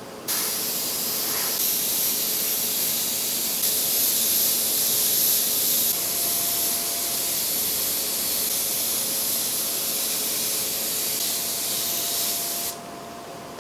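Airbrush spraying thinned gray paint: a steady hiss of air that comes on just after the start and cuts off suddenly about a second before the end, when the trigger is released.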